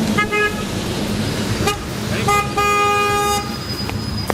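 Car horns honking in passing traffic: a few short toots, then one longer honk of nearly a second, in support of a flag display. Steady traffic noise runs underneath.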